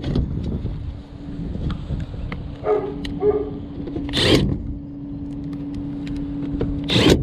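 Milwaukee cordless impact driver driving screws into a sheet-metal access panel: two short bursts, one about four seconds in and one near the end, over a steady hum.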